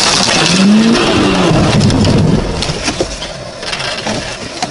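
Vehicle noise picked up by a car's dashcam: a loud rushing of engine and road noise with a brief rising engine tone about half a second in. About two and a half seconds in it drops to a quieter rumble with a few knocks.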